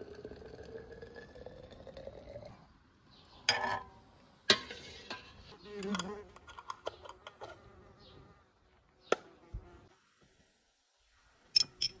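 Liquid poured from a jug into a narrow glass bottle of sliced peaches, its pitch rising as the bottle fills. Then come sharp clicks and glass knocks as metal screw lids are turned onto glass jars of peach jam, and near the end a few light clinks of a spoon against a cut-glass bowl.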